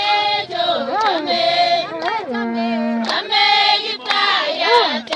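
Group of high voices singing unaccompanied: held notes broken by sliding, wavering phrases.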